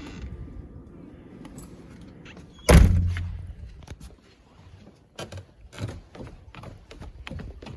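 A door shutting with a single heavy thud about three seconds in, followed by scattered footsteps.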